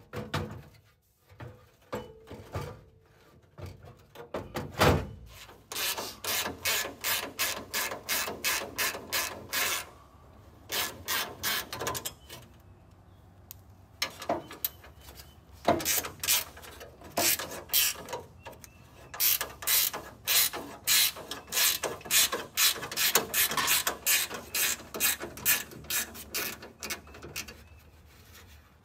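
Hand ratchet wrench clicking in quick runs with short pauses as bolts are turned inside a car door shell, with a single heavier knock about five seconds in.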